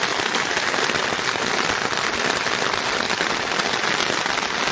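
Rain falling steadily: a dense, even hiss of drops that holds at one level throughout.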